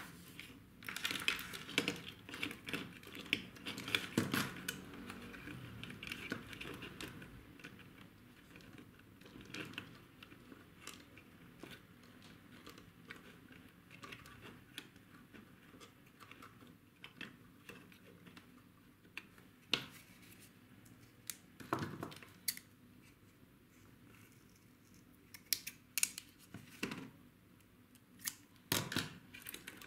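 Hands handling a small RC car chassis and its wiring on a workbench mat: scattered small clicks and taps, with a stretch of rustling in the first several seconds.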